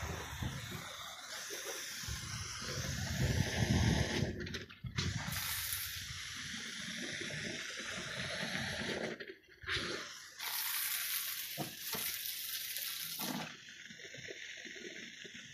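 Water running from a hose into a rolled-up rug standing on end, rinsing it, with water draining out at its base. The flow breaks off briefly twice and turns quieter near the end.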